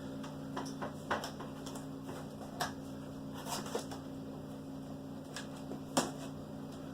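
A cardboard shipping box being opened and handled by hand: scattered clicks, scrapes and rustles of cardboard, the sharpest about six seconds in, over a steady low hum.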